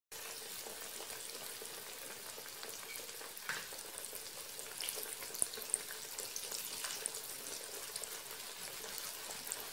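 Cornmeal-breaded eggplant slices frying in shallow oil in a pan: a steady sizzle with scattered small pops and crackles.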